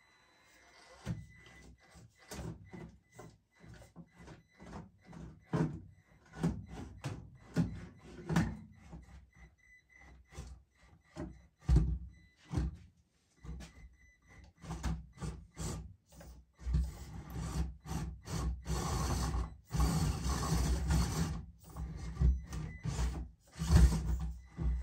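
Mini-scale RC crawler working over an indoor course: a run of knocks, clatters and scrapes as its tires and plastic body bump and rub over the obstacles, busiest in the last several seconds, with a faint high whine from its small electric motor in the first half.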